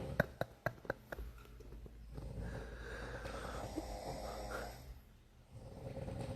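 A person snoring: one long snore lasting about three seconds in the middle, and another starting near the end. In the first second a quick run of sharp clicks cuts in.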